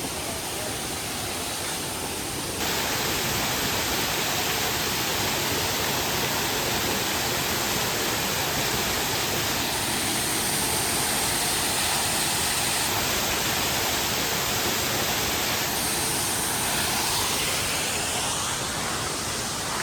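Waterfall running heavy after rain: a steady rushing of falling water, with a few sudden jumps in level.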